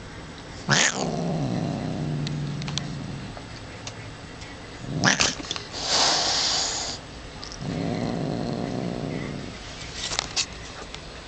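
Angry domestic cat growling in long, low, drawn-out rumbles: warning growls from a cat that is lashing out. The growls are broken by sharp outbursts about a second in, around five seconds and near the end. A hiss runs from about six to seven seconds, mouth wide open.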